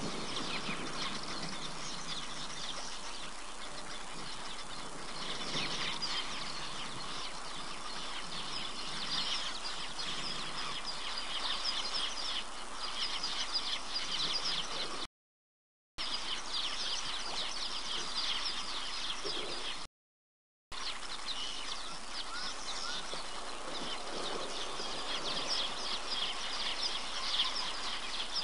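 Bush ambience of many birds calling, with short chirps and calls overlapping continuously. The sound cuts out completely twice for under a second, about fifteen and twenty seconds in.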